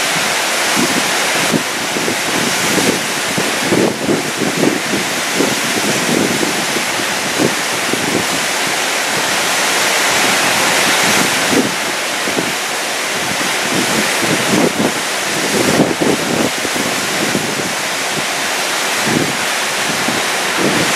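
Steady rush of fast-flowing water in a hydro canal, with gusts of wind buffeting the microphone.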